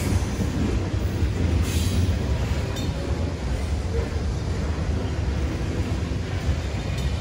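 Freight train of covered hopper cars rolling past a grade crossing: a steady low rumble, with a few sharp clanks near the start and about two to three seconds in.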